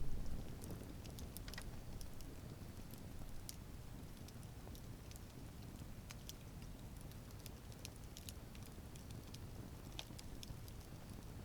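Wood campfire burning: a steady low rumble of flames with scattered sharp crackles and pops from the burning wood, and a louder low thump right at the start.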